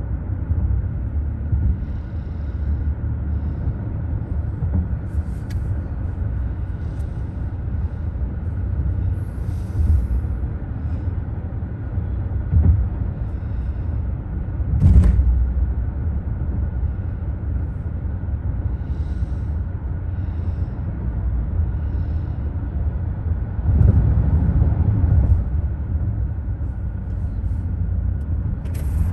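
Road noise inside a moving car's cabin: a steady low rumble of tyres and engine, with one sharp knock about halfway through and the rumble swelling briefly near the end.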